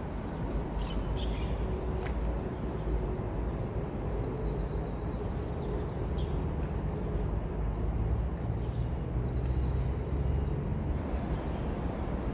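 Steady low outdoor rumble under a concrete bridge, with a few faint clicks and short high chirps now and then.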